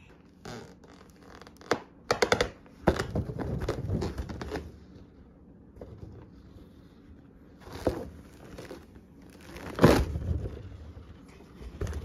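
A large clear bubble balloon filled with small balloons being handled and knocked about: irregular rubbing, crinkling and scraping of its plastic skin, with a run of rubs in the first half and a louder bump about ten seconds in.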